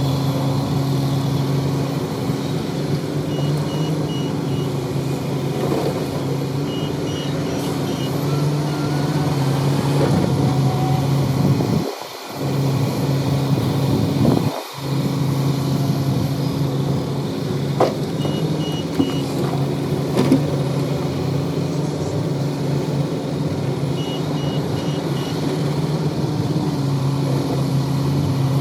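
Heavy diesel engine of a construction machine running steadily, while a high warning alarm sounds in short runs of three or four beeps, four times. The engine sound dips sharply twice near the middle.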